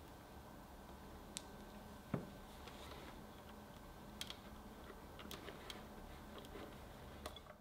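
Scattered light clicks and taps of a silicone spatula and hand-mixer beaters against a glass mixing bowl of butter and powdered sugar, with one louder knock about two seconds in, over a low steady hum.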